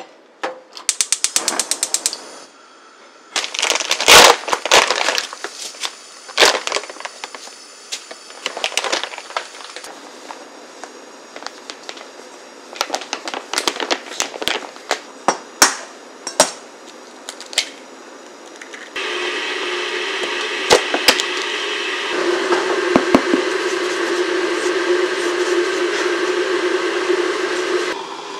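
Kitchen cooking sounds: a quick run of clicks near the start, then clatters and knocks of a stainless steel pot and mixing bowl as flour goes in. About two-thirds of the way through, a steady rumbling hum sets in, an electric kettle heating water to the boil, and it drops away just before the end.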